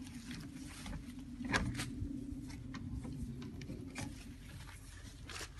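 Scattered light knocks and clicks over a low steady hum, the loudest knock about a second and a half in; the hum fades out about three seconds in.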